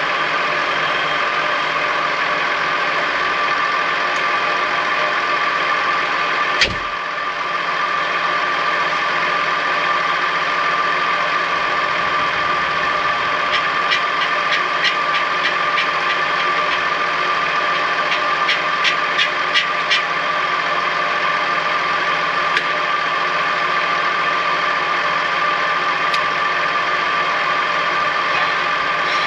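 Tractor engine running steadily under load while working a single rotor hay rake, with a steady high whine over the engine. There is one sharp knock about six and a half seconds in, and a run of light clicks in the middle.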